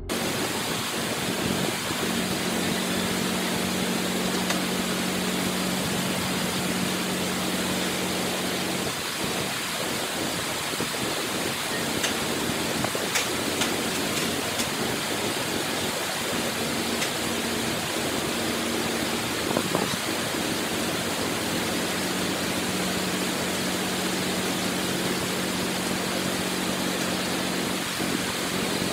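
Crawler bulldozer's diesel engine running with a steady low hum that fades out for a stretch in the middle, under a constant loud rushing hiss.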